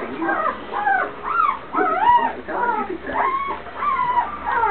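Newborn puppies squeaking and whimpering while they nurse, many high, wavering cries overlapping, each rising and falling in pitch.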